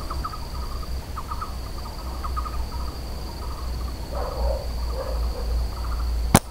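A steady high insect buzz, with short bird chirps repeating throughout. Near the end comes a single sharp snap, a rubber-band slingshot shot that brings a bird down.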